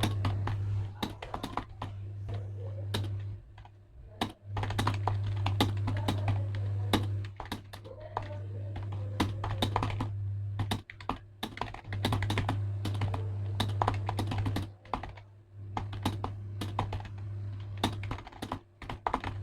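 Rapid typing on a new, compact Zebronics computer keyboard: a steady stream of key clicks with a few short pauses. A low steady hum runs underneath and drops out now and then.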